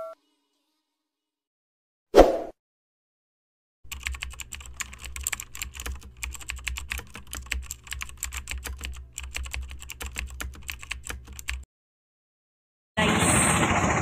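Computer keyboard typing sound effect: rapid, irregular key clicks for about eight seconds, preceded by a single short hit about two seconds in. Near the end the steady running noise of a car cabin begins.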